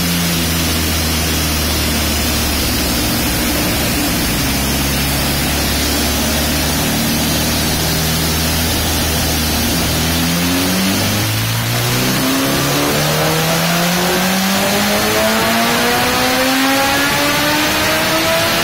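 Honda CBR1000RR inline-four engine, breathing through an Arrow full-system exhaust, running on a chassis dyno. It holds a steady engine speed for about ten seconds, then climbs steadily in pitch through the revs as the dyno pull begins.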